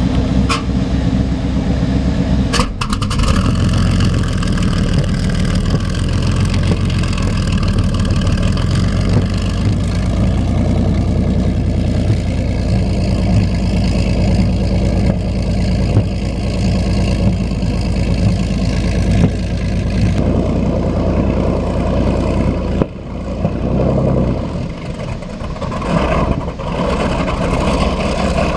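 Isotta Fraschini W18 petrol engines of a Swedish T26 torpedo boat running loud and steady, with a change in their note about two and a half seconds in. Near the end the sound swells as the boat pulls away under power.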